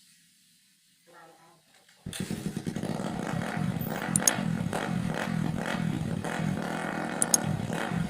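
Motorcycle engine running through a homemade chicken-pipe exhaust. It cuts in suddenly about two seconds in after near-quiet, then runs steadily with a fast, even exhaust pulse.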